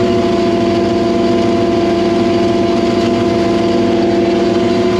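Milk truck's engine-driven milk pump running steadily while it pumps milk out of a farm bulk tank: a loud, even drone with a strong steady hum.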